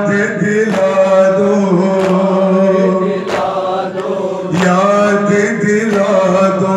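Men chanting a Shia nauha lament together, punctuated by sharp claps of matam, hands striking chests in unison about every 1.3 seconds, five times.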